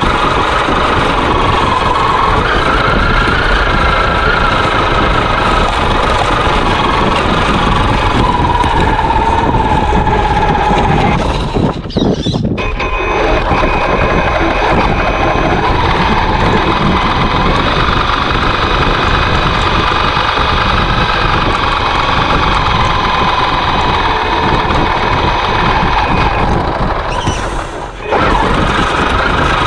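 Traxxas X-Maxx RC truck's brushless electric motor and drivetrain whining as the truck drives and pushes snow with its front plow blade, heard close up from on board. The whine rises and falls in pitch with speed, and the sound drops away briefly about twelve seconds in and again near the end as the truck eases off.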